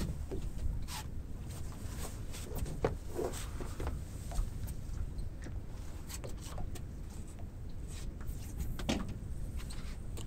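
Scattered clicks and knocks of fishing gear being handled on a small boat, over a steady low rumble.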